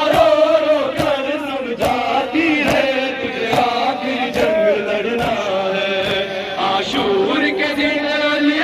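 Men chanting an Urdu noha, a mourning lament, together. The chanting is crossed by sharp hand strikes about once a second, typical of matam chest-beating in time with the lament.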